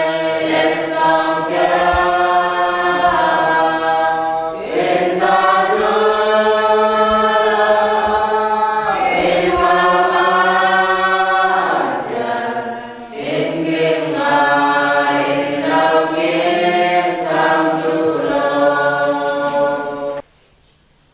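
A choir singing a hymn in long held phrases with short breaths between them. It cuts off abruptly about a second before the end.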